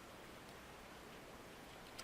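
Near silence: room tone and faint hiss, with a faint click about half a second in and another at the very end.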